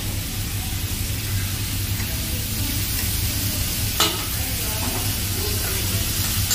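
Food sizzling on a teppanyaki flat-top griddle, a steady hiss over a low hum, with one sharp clink about four seconds in.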